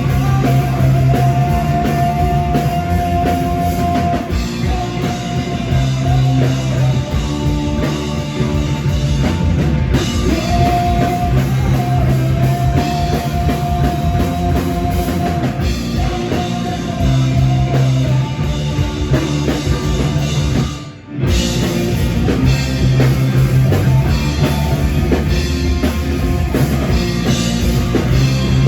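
Live rock band playing loud, with drum kit and guitars and a long held high note over them. About two-thirds of the way through, the whole band cuts out for under a second, then comes back in.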